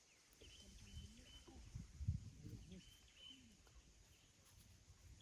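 Faint outdoor ambience: distant voices talking low, with short high bird chirps repeating through it.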